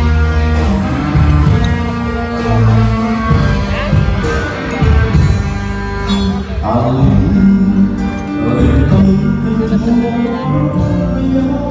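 Music with guitar and a singing voice, playing steadily and loud.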